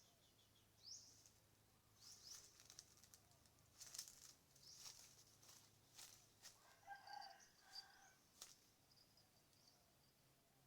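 Faint bird calls: repeated short, rising high chirps, with a brief lower pitched call about seven seconds in and a few sharp clicks.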